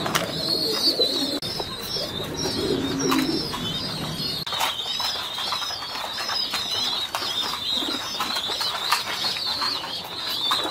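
Pigeons in a loft: low cooing in the first four seconds or so, under a steady chatter of high-pitched chirping that runs on throughout, with scattered sharp clicks.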